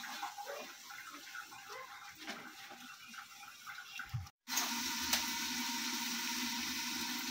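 Pork pieces cooking in their own juices in a covered wok: faint bubbling at first, then, after a short break about four seconds in, a steady hiss of the meat simmering and sizzling as its water cooks off and its fat starts to render.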